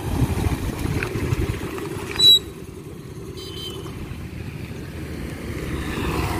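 A Pleasure scooter's small engine runs with a low rumble as it rides up and stops, with a short, sharp, loud sound a little over two seconds in, after which it is quieter. Near the end another motorbike passing on the road grows louder.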